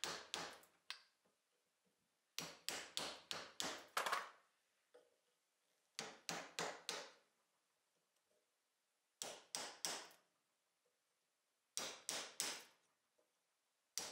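A pointed steel pick jabbed into a drilled-out dowel hole, picking out the remnants of an old wooden dowel: sharp clicking strokes in quick bursts of three to six, a burst every two to three seconds.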